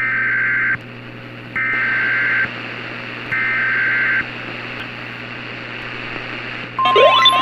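Emergency Alert System SAME header: three short bursts of buzzing digital data tones, each under a second and about a second apart, over a steady hum and hiss. Near the end a steady alert tone starts, with rising siren-like tones sweeping up over it.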